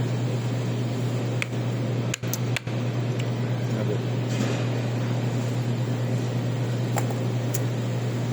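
Steady low mechanical hum with a faint hiss, with a few light clicks and two brief drop-outs about two seconds in.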